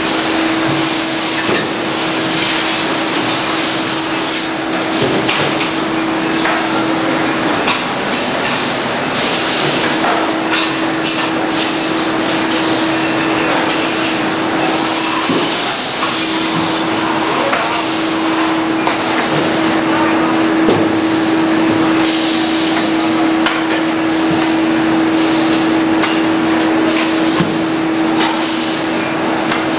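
Factory workshop noise from a row of induction brazing machines: a loud, steady hiss with a steady hum that drops out twice, for a couple of seconds about a quarter of the way in and briefly around halfway, and scattered knocks of parts being handled.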